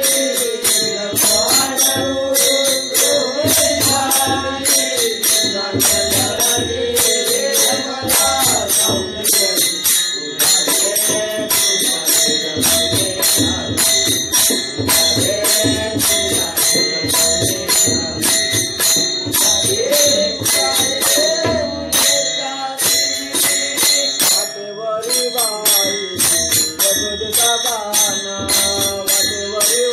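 Marathi gavlan devotional folk music: a melody line over a fast, steady rhythm of jingling metal percussion and low drum beats.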